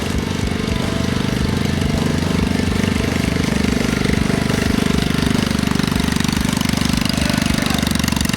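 Predator 212cc single-cylinder four-stroke engine on a mini bike, running steadily with a rapid, even putter.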